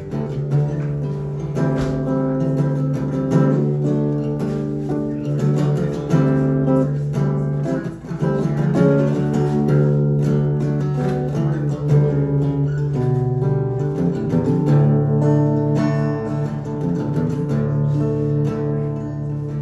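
Steel-string acoustic guitar strummed steadily in an instrumental break between sung verses, chords ringing and changing throughout.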